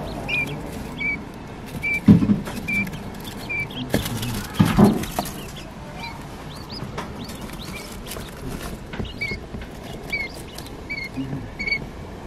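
Quail chicks peeping: short single high chirps, all at much the same pitch, repeated roughly once a second. A couple of louder rustling bumps come about two and five seconds in.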